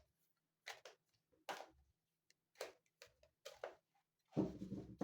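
Tarot cards being handled and shuffled by hand: a series of short, crisp card slaps and flicks, then a louder, denser rustle of cards near the end.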